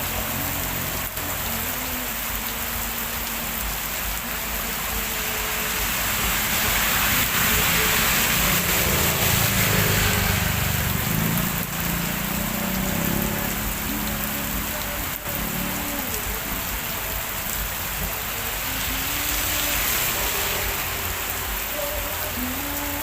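Heavy rain pouring steadily, swelling louder for a few seconds in the middle and again near the end.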